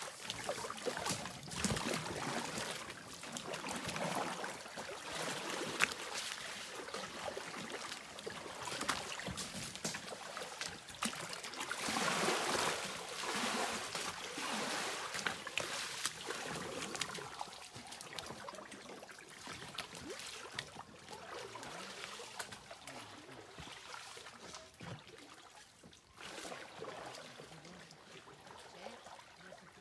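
River current rushing and splashing around an inflatable canoe paddled upstream through a narrow, fast stretch, with small splashes and knocks from paddle strokes. The water is loudest about twelve seconds in and fades toward the end.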